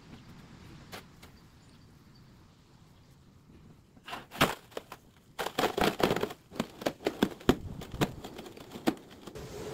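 Aerosol can of expanding spray foam insulation spitting and crackling in short irregular bursts as foam is squeezed through its straw into a drilled hole in a cooler wall, starting about four seconds in.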